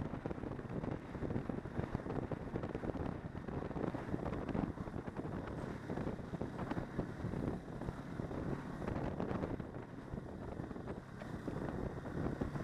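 Snowmobile riding along a snow trail: its engine and track run steadily under heavy wind buffeting on the microphone.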